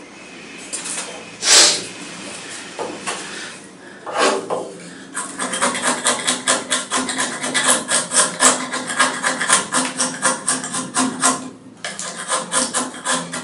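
Folding knife blade whittling a wooden block: a few separate shaving cuts, then from about five seconds in a fast run of short scraping strokes, about five a second, that stops about a second before the end.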